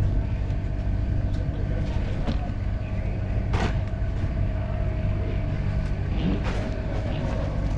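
KTM 250 two-stroke dirt bike engine running at idle, a steady low rumble. Two sharp knocks come about three and a half and six and a half seconds in as the bike is handled.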